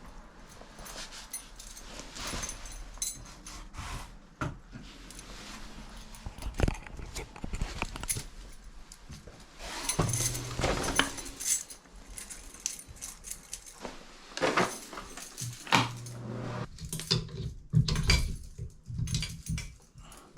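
Keys jangling among scattered clicks and knocks of things being handled, with a few short low hums about halfway through and again near the end.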